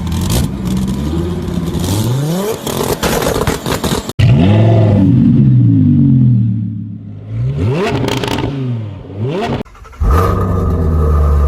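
High-performance car engines in three back-to-back clips. The first revs, with its pitch climbing about two seconds in. The second is louder and is blipped up and falls back several times. The third settles into a steady deep rumble near the end.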